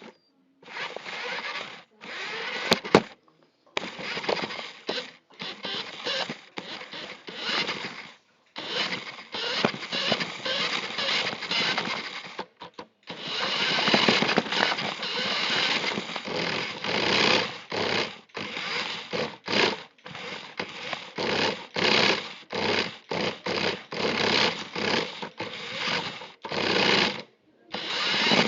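RC car's motor whirring in repeated bursts as the throttle is worked on and off, with short pauses between. There is a sharp knock about three seconds in.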